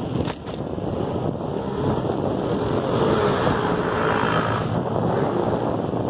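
Wind buffeting a hand-held phone's microphone while riding a bicycle, a steady noise with two brief clicks just after the start.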